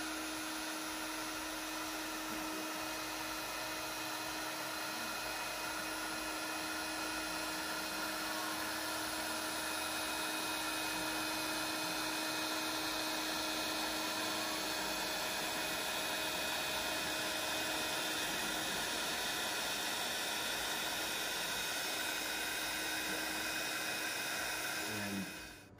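Trim-router spindle of a hobby CNC router running at high speed while a quarter-inch upcut end mill mills a 6061 aluminum plate in shallow passes: a steady high whine over cutting noise. It cuts off near the end.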